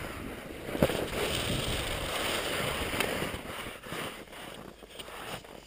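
Skis sliding and scraping over wind-packed off-piste snow, with wind on the microphone; a sharp knock about a second in, and the sliding grows fainter after about three and a half seconds.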